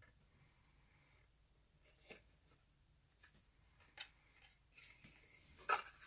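Cardstock being handled, folded and pressed together by hand: a few short crisp paper crackles and taps, the loudest near the end, with light rustling of the paper.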